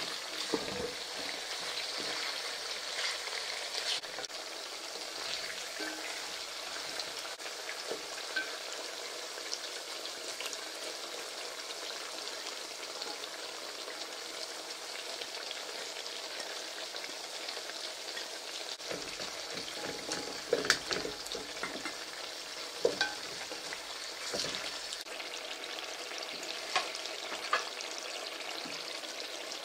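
Sliced carrots frying in oil in a large pot, with a steady sizzle. A wooden spoon stirs through them, with a few sharp knocks against the pot, mostly in the second half.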